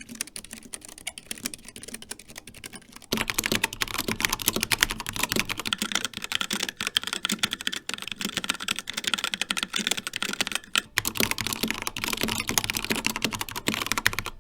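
Continuous fast typing on mechanical keyboards with red linear switches. A quieter, thinner clatter from the Keychron K3's low-profile optical red switches gives way, about three seconds in, to the louder, fuller clacking of the HyperX Alloy Origins with HyperX Red switches, which pauses briefly near the end.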